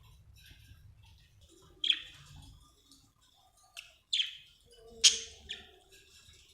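Budgerigar chirping: five short, sharp chirps that drop quickly in pitch, spread through the clip, over soft warbling.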